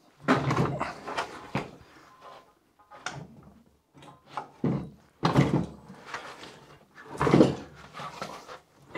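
Clunks and scraping of metal as a Citroën Méhari engine is rocked and heaved loose from its chassis by hand, in several irregular bursts; the loudest are about a second in and about seven seconds in.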